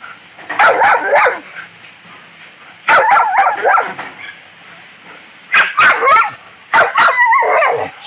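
Dog barking and yipping in four quick bouts of several rapid barks each, with quieter gaps between them.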